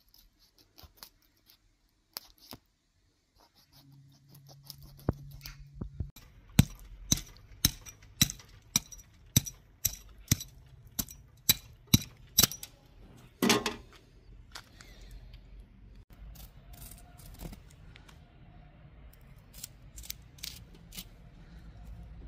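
Knife scraping and cutting the skin of a large fish: a run of sharp, evenly spaced strokes about two a second, then one louder stroke. Fainter scattered clicks come before and after the run.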